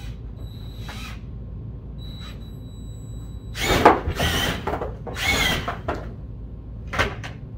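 Cordless drill run in several short bursts with its bit snagged in a duct-taped flannel jacket, the cloth wound onto the bit and whipping and rustling around it. The bursts come after a few quieter seconds, the loudest about halfway through.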